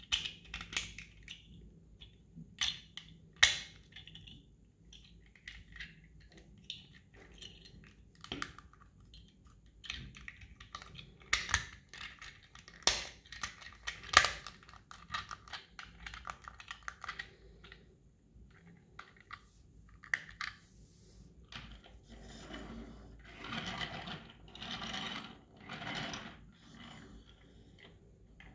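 Small plastic Silverlit Robocar Poli mini transforming toy (the Amber ambulance) handled and transformed by hand: irregular plastic clicks and snaps as parts are folded and locked into place, with a run of longer scrapes and rattles near the end.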